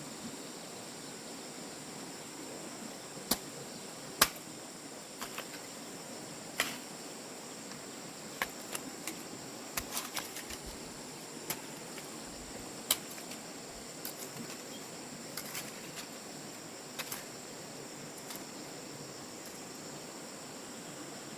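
Steady high-pitched buzz of insects, broken by irregular sharp clicks and knocks, about twenty of them, the loudest two around three to four seconds in.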